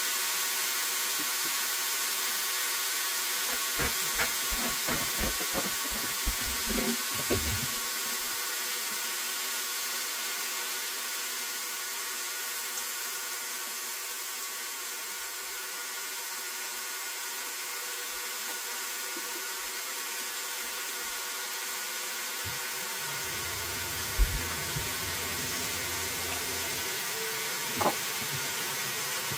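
Breaded chicken strips sizzling in hot frying oil, a steady hiss. A few clicks and knocks come about four to seven seconds in, and two sharp knocks come later.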